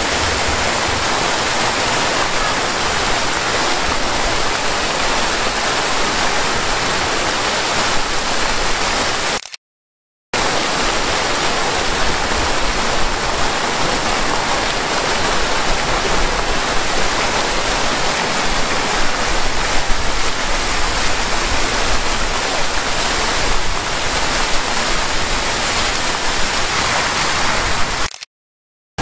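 Water jets of a two-tiered dog fountain spouting and splashing into the basin: a steady, loud rush of falling water. It drops out to silence for a moment about ten seconds in and again near the end.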